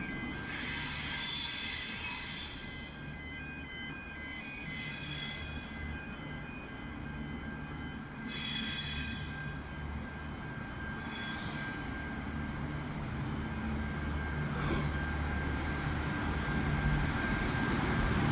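V/Line VLocity diesel multiple unit approaching and drawing into the platform. Its diesel engines give a low, steady drone that grows louder toward the end. Brief high-pitched squeals come and go four times in the first twelve seconds, and there is one sharp click near the end.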